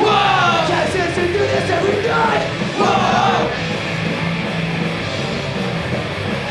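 Punk rock band playing live, with vocals for the first three seconds or so, then the band carrying on without the voice.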